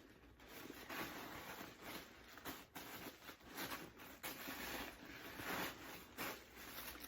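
A pebble-grain leather drawstring handbag being handled and opened: soft, irregular rustling and brushing with short scrapes.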